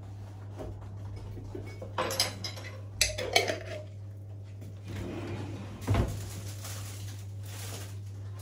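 Kitchen clatter: a spoon clinking against a bowl and a glass mustard jar, with sharp clinks about two and three seconds in, then a dull thump about six seconds in, over a steady low hum.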